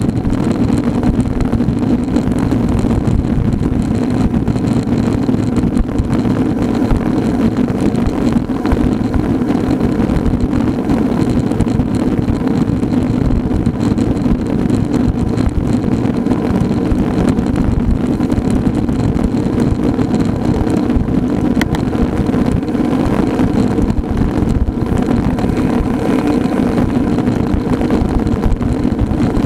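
Steady rush of wind on the microphone mixed with tyre and road noise from riding a road bike at speed, unbroken throughout.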